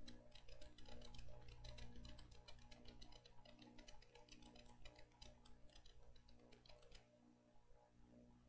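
Faint, rapid, irregular clicking over a low steady hum; the clicking stops about seven seconds in.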